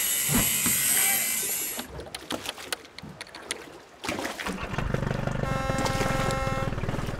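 Sound effects for an animated logo intro. A loud hissing whoosh cuts off about two seconds in, followed by scattered crackling clicks. Then comes a low, rapidly pulsing rumble, with a steady multi-note tone over it for about a second near the end.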